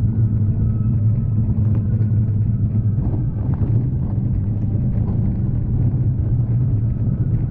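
Steady low rumble of a bicycle riding along a wet street, with wind buffeting the handlebar-mounted camera's microphone.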